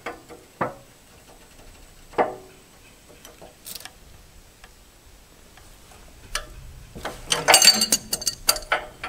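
Hand wrench clinking and clicking on the backhoe's hydraulic line fittings as the hoses are worked loose: a few separate metal clicks, then a quick run of rapid clicking near the end.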